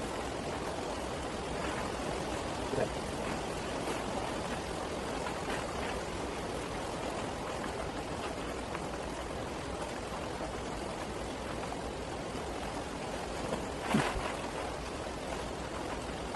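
Steady rain falling on an arched plastic-covered greenhouse roof: an even hiss, with faint rustles of dried chillies and a plastic bag being handled, and a short sharp knock about 14 seconds in.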